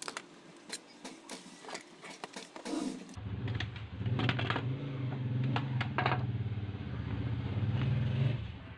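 Plastic clicks and taps from handling and prying apart the case of a Milwaukee M12 battery charger. About three seconds in, a steady low engine-like drone comes in under further clicks and stops shortly before the end.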